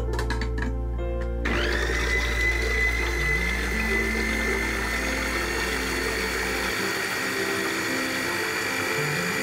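A few clicks as the lid goes onto a small food processor, then its motor starts about a second and a half in with a rising whine that settles into a steady high whir as it blends yogurt, sugar and matcha powder into a liquid.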